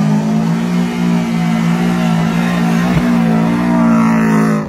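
Subaru Impreza's flat-four boxer engine held at high, nearly steady revs while the car spins its wheels through loose sand.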